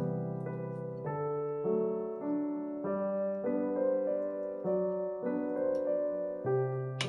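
Background solo piano music: a slow, gentle melody over soft chords, with a new note about every half second.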